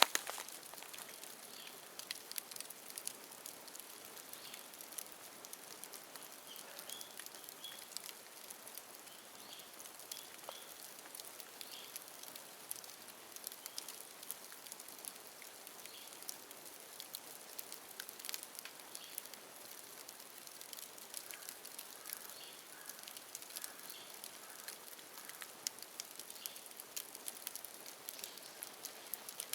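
Bonfire of dead bamboo crackling, with many small sharp pops and snaps over a steady hiss. Faint bird calls come through: a short run of repeated notes about seven seconds in and a lower series of notes past twenty seconds.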